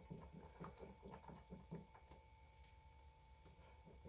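Faint, rhythmic wet squishing of cold process soap batter being stirred by hand to blend in added mica, several strokes a second, fading off about halfway through.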